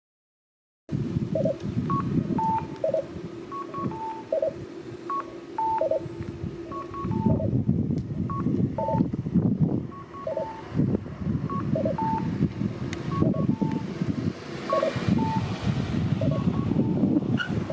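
Kyosan 1015 (version 1) accessible pedestrian signal playing its electronic cuckoo in the alternating two-voice pattern: a two-note descending "kak-koo" answered by a three-note "ka-kak-koo", repeating about every one and a half seconds, the sound that tells pedestrians the light is green. It starts about a second in, over a loud, continuous low rumble.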